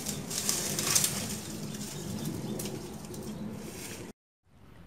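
Dry brush and branches rustling and cracking as firewood is gathered by hand; the sound cuts off to silence near the end.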